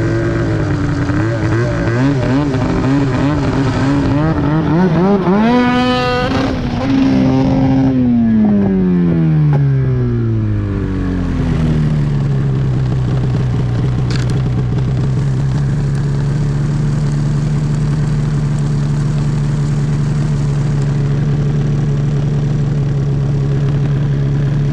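Arctic Cat CFR 1000R snowmobile's two-stroke twin, fitted with an aftermarket GGB exhaust can, blipped unevenly at first, then revved up hard about five seconds in. It holds briefly and falls back over several seconds to a steady idle. A single short tick comes partway through the idle.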